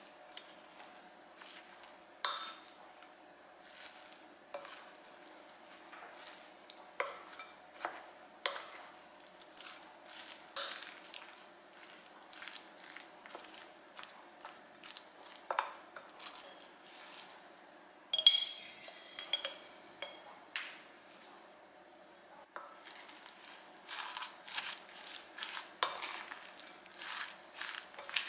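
A utensil mixing sliced onion, scallion and red chili into a thick chili-flake and soy sauce seasoning in a glass bowl: irregular wet stirring with clinks and scrapes against the glass, the loudest a short ringing clink about 18 seconds in.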